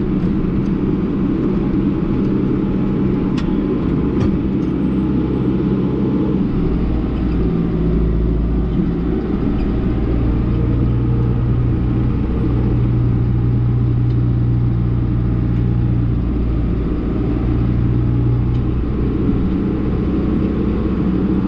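Case 1090 tractor's diesel engine running steadily under load while pulling a sprayer, heard from inside the cab, its pitch shifting slightly a few times.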